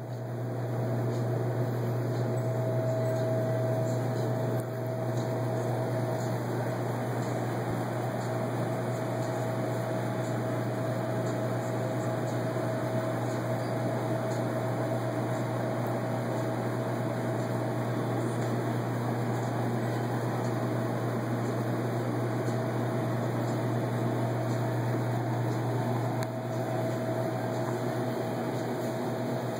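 Steady hum and airy hiss of a grocery store's ventilation and refrigeration machinery, with a strong low hum and a faint steady higher whine, fading in over the first second.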